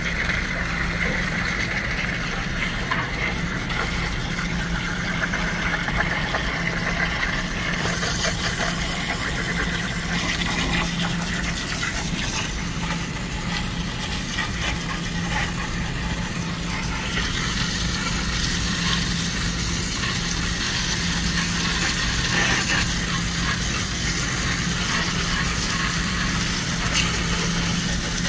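Garden hose with a brass spray nozzle jetting water onto a refrigerated display case's evaporator coil fins to wash off grime, a steady hiss that grows stronger about eight seconds in and again at about seventeen seconds. A steady low machine hum runs underneath.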